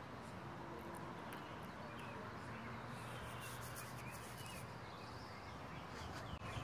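Quiet outdoor background noise with a few faint short bird chirps.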